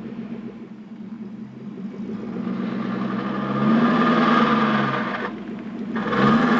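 1984 Porsche 928S V8 with automatic transmission, pulling in reverse from cold: the engine hum swells twice, about two seconds in and again near the end, with a loud ugly noise that sounds like a roller coaster going up a chain lift. The noise comes only in reverse and only when cold; the uploader later concluded it means the transmission needs a rebuild or replacement.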